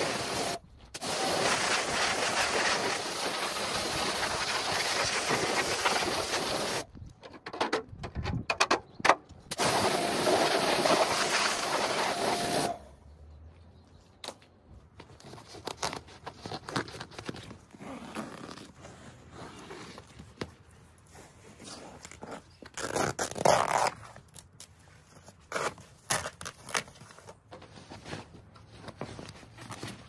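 A pressure washer's jet hisses steadily onto a plastic seat frame, breaking into short on-off bursts for a couple of seconds near the middle, and stops about 13 seconds in. After that come quieter, irregular scraping and tearing sounds as a blade cuts through an old seat cover and it is peeled off.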